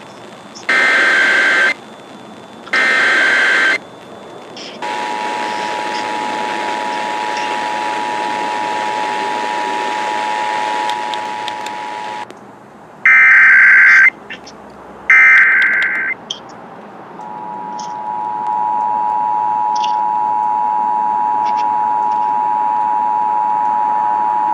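Emergency Alert System test tones: two short screeching SAME digital data bursts about a second each, then the steady two-tone EAS attention signal (853 and 960 Hz together) for about seven seconds. Two more data bursts follow about 13 and 15 seconds in, then the two-tone attention signal starts again and runs on, over a faint hiss.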